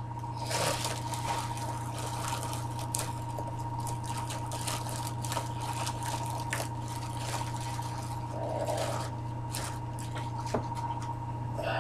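Plastic bag crinkling and rustling in irregular crackles as it is opened by hand, over a steady electrical hum.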